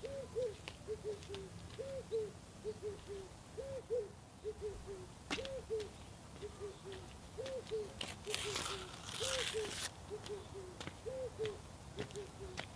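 A dove cooing over and over in a steady rhythm, each phrase two higher coos followed by three shorter, lower ones, repeating about every two seconds. Light scattered ticks of footsteps, and a brief rustling hiss about eight seconds in.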